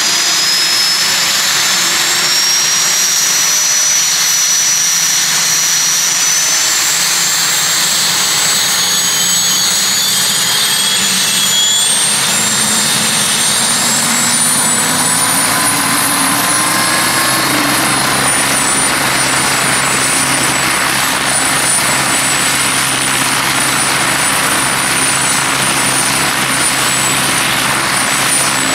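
Westland Wasp helicopter's Nimbus turboshaft engine running up on the ground with the rotors turning. A high turbine whine climbs steadily in pitch for most of the first two-thirds, then holds level, while a lower rotor hum builds in from about halfway.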